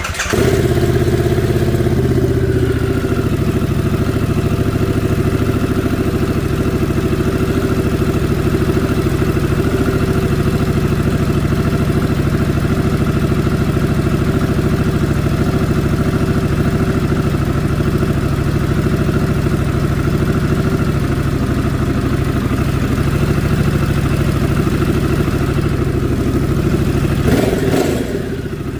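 Harley-Davidson Pan America's Revolution Max V-twin starting up and idling through an A1 Cycles stainless exhaust fitted with a DIY clip-on dB killer silencer stuffed with stainless steel mesh. The engine catches at once, runs a little harder for the first couple of seconds, then idles steadily; near the end the sound changes briefly and settles slightly quieter.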